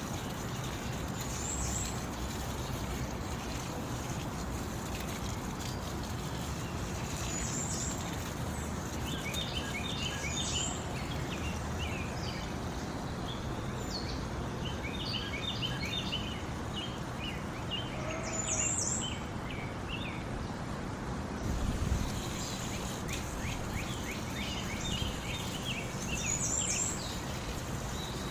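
Small songbirds chirping and twittering in bursts over a steady rushing background of running water. A brief low bump comes about three-quarters of the way through.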